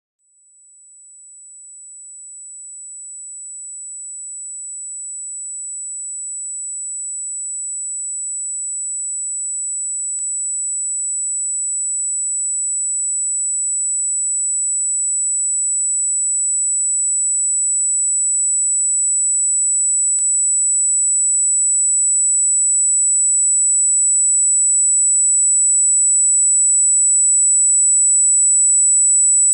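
Electronically generated high-pitched pure tone, held at one steady pitch, fading in from silence and growing steadily louder, with two faint clicks about ten seconds apart.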